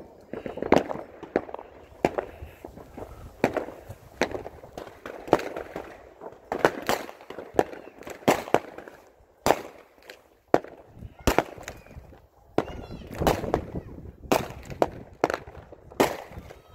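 Fireworks going off around the neighbourhood: irregular sharp bangs, roughly one a second, some close and loud and some faint and distant, each with a short echo.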